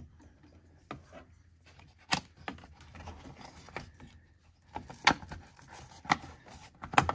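Hard plastic battery cover being handled and pressed into place over the battery terminals, with several sharp clicks and knocks as it seats, the last few close together near the end.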